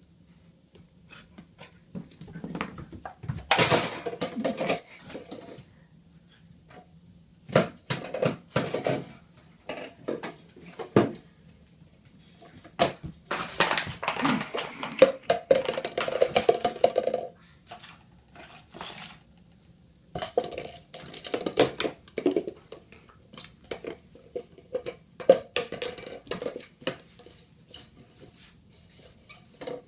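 An empty plastic jar clattering and scraping on a tile floor as a standard poodle puppy noses and pushes it around. It comes in several bouts of rapid knocks lasting a few seconds each, with quieter gaps between.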